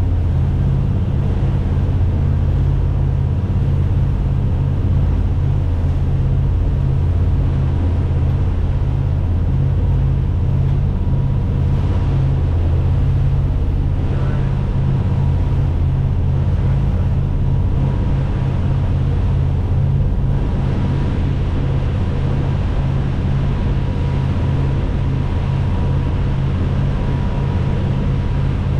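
A boat's engine runs steadily while the boat is underway, giving a loud low drone with a faint steady whine over it.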